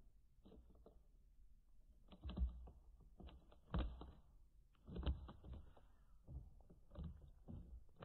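A kitten's claws catching and scratching at a knitted blanket: faint, irregular bursts of scratchy clicks, a cluster every second or so from about two seconds in.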